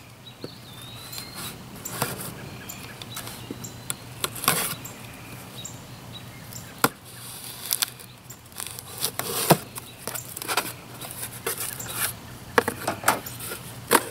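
A cardboard shipping box being opened by hand: packing tape cut and torn, and the flaps scraped and pulled open, in irregular sharp taps, scrapes and short rustling tears.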